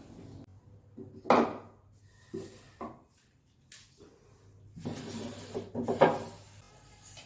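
Kitchen items being handled and set down on a counter during organizing: a solid knock about a second in, a few lighter knocks, then a couple of seconds of clattering and sliding that ends in a sharp knock.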